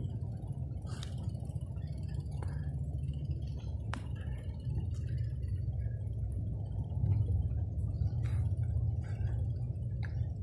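Steady low rumble of wind and rolling noise on the microphone of a bike-mounted or handheld camera while riding, with scattered light clicks and ticks.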